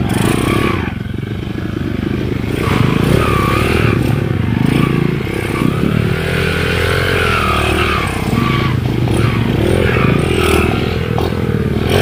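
Dirt bike engines running and revving up and down as the bikes ride through a shallow river, with water splashing from the wheels.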